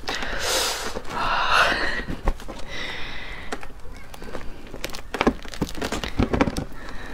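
Spiky durian husk being prised apart by hand: a few rasping tears of the fibrous rind in the first three seconds, then scattered crackles and clicks as the segments split open.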